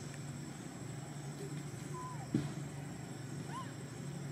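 Steady low background hum with a faint high steady tone above it. Two short squeaky chirps come about two and three and a half seconds in, with a brief soft thump just after the first.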